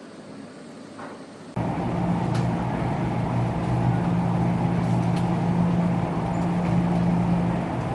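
Steady hum and whir of laundromat machines running, with a strong low drone. It is much quieter for about the first second and a half, then cuts back in abruptly.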